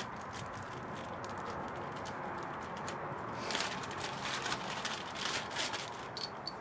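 Clear plastic parts bag crinkling and rustling as it is handled and opened, with small metal wheel pins clicking against each other, busiest from about halfway in. A steady background hiss runs underneath.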